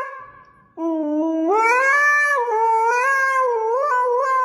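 A pet animal's long, drawn-out call. One call fades out at the start, and another begins about a second in and carries on with slow rises and falls in pitch.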